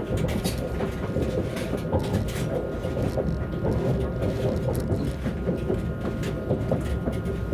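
Running noise inside a carriage of an ES1P Lastochka train under way: a steady low rumble with frequent irregular clicks and rattles from the wheels on the track.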